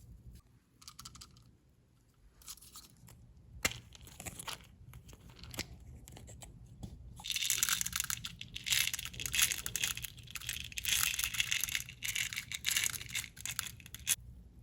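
Hands handling a slime toy kit: scattered clicks and crinkles, then a dense run of crackling and crinkling from about halfway through that stops just before the end.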